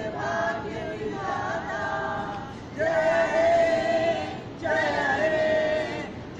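A group of men and women singing together in unison without accompaniment, in long held phrases with short breaks between them.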